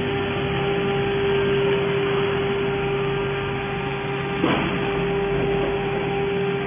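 Steady machine hum with a constant held tone from the laser welding robot cell while the laser head welds along the seam. One short sharp click about four and a half seconds in.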